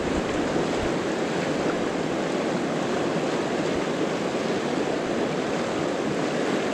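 Fast, shallow mountain river rushing over a stony riffle, a steady even rush of water.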